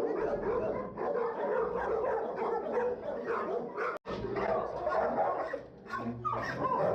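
Many shelter dogs barking and yipping over one another in the kennels: a loud, unbroken din.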